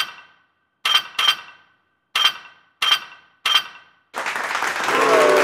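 Sword-clash sound effect: six sharp metal-on-metal clangs, each ringing briefly, two of them close together about a second in. Then a loud, steady rush of noise begins with about a second left, with a held pitched tone sounding through it near the end.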